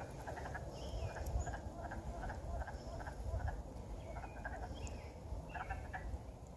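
A chorus of frogs calling from a wetland pond: many short, overlapping pulsed calls repeating a few times a second, over a steady low rumble.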